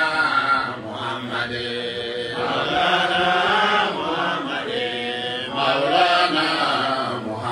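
A man's voice chanting a devotional Mawlid chant into a microphone, drawing out long notes that bend in pitch.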